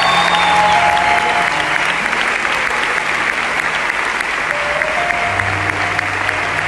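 Audience applauding steadily, over soft live band music with sustained low notes.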